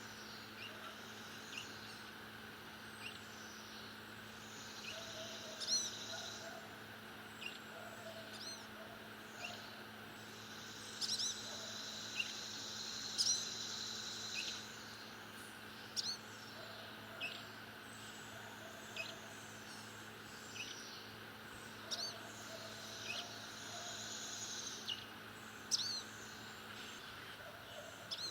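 Blue-gray gnatcatcher calling: short, thin, high notes every second or two, with a few longer buzzy stretches in between.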